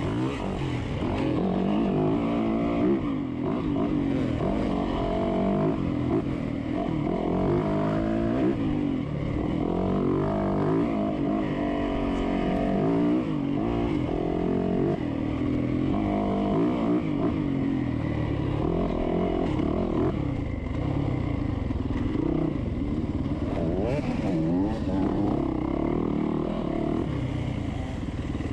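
Dirt bike engine heard close up from on the bike, revving up and down continually as the rider accelerates, shifts and slows along a trail.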